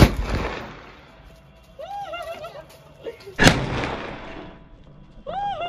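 Two sharp bangs from a sulphur-potash (gandhak potash) firecracker pipe gun, about three and a half seconds apart, each followed by a short trailing echo.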